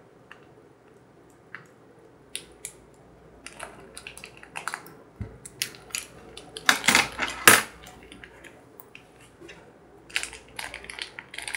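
A small plastic powder sachet from a DIY candy kit being cut open with scissors and crinkled in the fingers, with light plastic clicks. A louder burst of crackling comes about seven seconds in.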